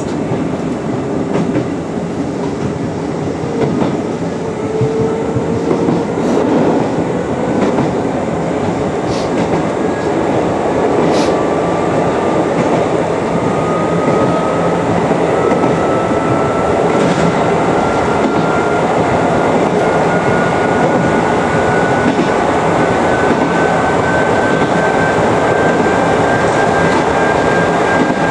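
Chichibu Railway 5000 series electric train running, heard from the front of the car. Its motor whine rises slowly and steadily in pitch as the train gathers speed, over steady wheel-on-rail rumble with a few sharp clicks from the rail joints.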